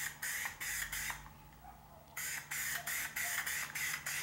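Aerosol spray paint can sprayed in short rapid hissing bursts, about two to three a second, with a pause of about a second near the start.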